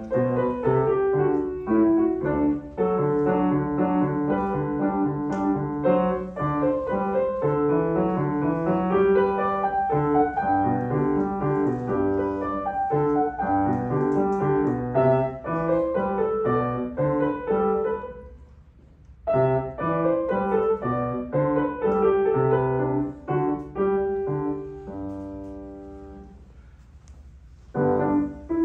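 Shigeru Kawai grand piano played solo: a classical piece in quick, clearly separated notes. Playing stops for about a second two-thirds of the way through, and near the end a held chord fades away before the playing starts again.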